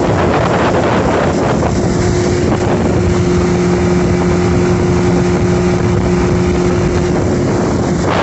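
Yamaha four-stroke outboard motor running at speed, a steady engine drone that is strongest through the middle. Wind buffets the microphone and the wake rushes behind the boat.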